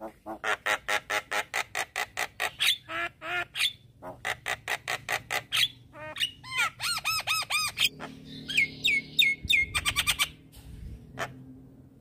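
Javan myna (jalak kebo) singing a fast, varied song: rapid runs of harsh repeated notes, a few falling whistles, then a short pause near the end.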